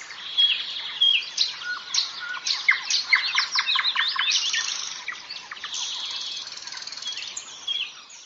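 Small birds chirping and singing: a rapid run of quick falling chirps and short whistles, busiest in the middle and thinning out near the end.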